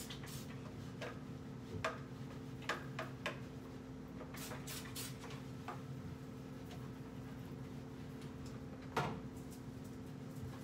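A handheld trigger spray bottle spritzes cleaner three or four times in quick succession about halfway through, amid light clicks and knocks of hands and a rag working on a kitchen range hood. Near the end comes a louder knock, the bottle being set down on the counter. A steady low hum runs underneath.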